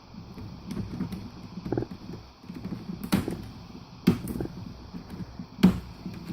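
Laptop plastic parts being handled and pried apart: a series of sharp clicks and knocks with rustling between them, the loudest knock near the end.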